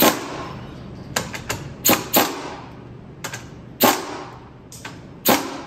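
Impact wrench blipped in about ten short rattling bursts on a strut's top nut, breaking the nut loose while the coil spring is still under tension.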